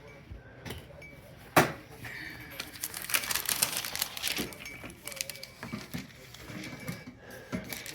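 Dishes, lids and cutlery being handled: scattered clinks and clicks, with a sharp knock about a second and a half in and a quick run of clicking a little later.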